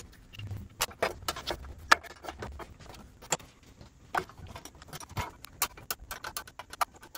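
Irregular small metallic clicks and clinks, a few a second, from hand tools and fittings as the fuel line and cables are disconnected from a pair of SU H1 carburetors.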